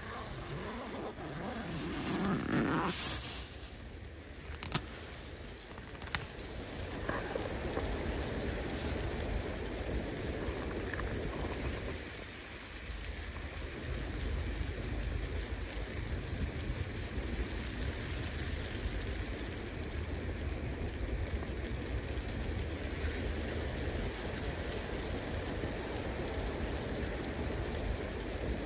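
Tent fabric rustling as the tent door is opened, with a sharp click about five seconds in. Then steady wind noise in snowy pine woods, with a low rumble of wind on the microphone.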